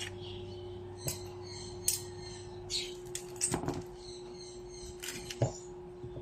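Light kitchen handling sounds: scattered short clicks and knocks of utensils and dishes, over a steady low hum.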